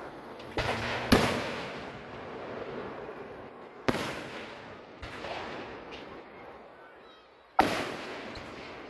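Aerial fireworks shells bursting overhead: about five booms, the loudest a second in and again near the end, each trailing off in an echoing rumble.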